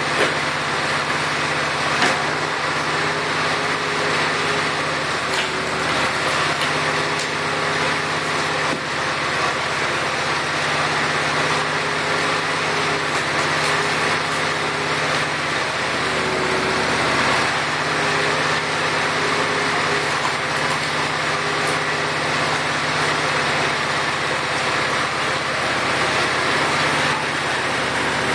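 Case 444 garden tractor engine running steadily, driving the hydraulic pump of a homemade log splitter, with a faint whine that comes and goes. A couple of sharp knocks sound in the first two seconds.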